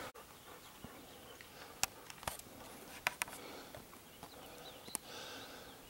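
Quiet outdoor trail ambience: a faint steady hiss with about half a dozen sharp, isolated clicks scattered through it.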